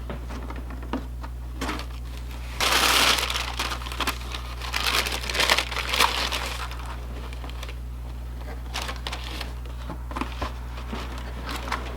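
Paper packaging crinkling and rustling as it is handled. It is loudest in a burst about three seconds in, rustles on again until past the middle, and then gives way to a few light clicks and taps.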